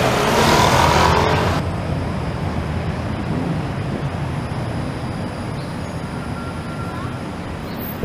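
Modern low-floor tram passing slowly close by, giving a steady low rumble from its running gear. Before it, about a second and a half of busier street traffic noise that cuts off abruptly.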